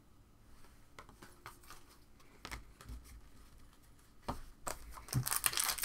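Faint clicks and taps of trading cards being handled, then about four and a half seconds in, a card-pack wrapper starts crinkling and tearing open, growing louder.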